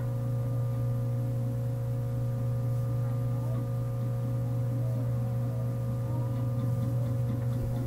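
A steady low hum, with a few fainter steady higher tones over it.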